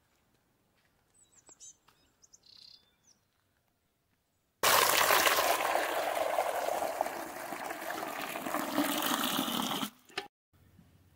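Faint bird chirps, then, about four and a half seconds in, water pouring in a heavy stream into a steel basin and splashing loudly for about five seconds before cutting off.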